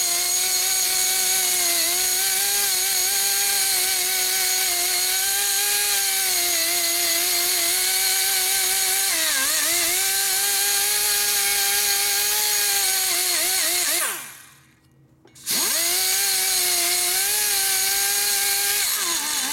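Die grinder porting the aluminium cylinder head of a Harley-Davidson Twin Cam 110, running with a steady high whine. The pitch sags briefly about halfway through as the bit loads up in the port. It spins down and stops, starts again a second or so later, and winds down near the end.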